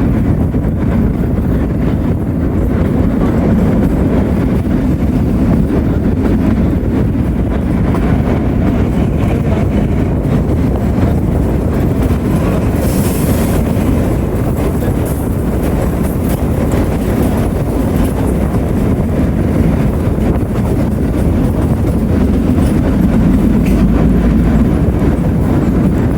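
Kalka–Shimla narrow-gauge toy train running along the track, heard from aboard: a steady low rumble of wheels on rails, with a brief high hiss about thirteen seconds in.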